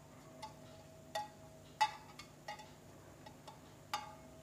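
Faint, light clinks on a small stainless steel plate, about five over four seconds, each leaving a brief ring, as fingers work at drops of jaggery syrup cooling in it; the loudest comes about two seconds in.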